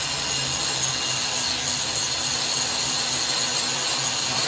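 Handheld angle grinder with a thin cutting disc running under load, cutting into a steel plate with a steady grinding hiss.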